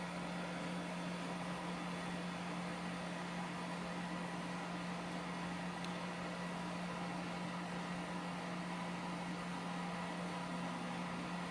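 Creality Ender 3 3D printer running during a print: a steady whirring hum from its cooling fans with a low steady tone.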